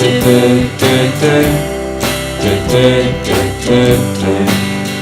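Music: an instrumental stretch of a guitar-led song with a steady beat.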